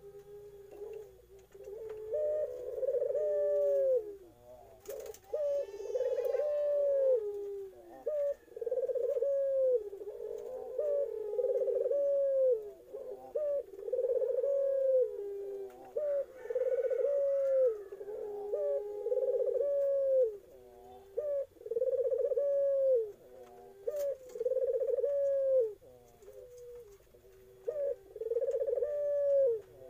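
Young Barbary dove of the 'puter Irak' variety cooing over and over, one coo about every two seconds, each stepping up to a held note that drops away at the end.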